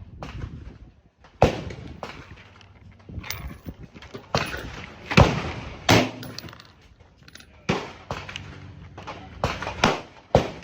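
Gunshots from a 5.56 AR-15-style pistol fired one at a time, about seven or eight sharp cracks at uneven intervals, the loudest about five seconds in.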